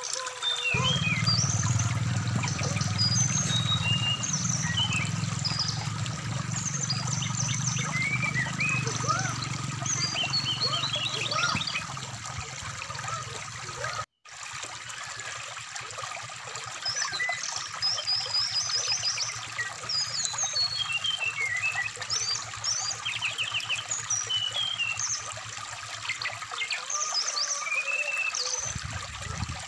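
Brown-chested jungle flycatcher (SRDC) singing: many short high chirps and quick trills, over the steady rush of a flowing stream. About halfway through, all sound cuts out for a moment.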